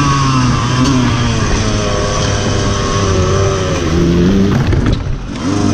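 Dirt bike engine heard close up from an onboard camera, its revs rising and falling with the throttle, dropping off briefly near the end before picking up again.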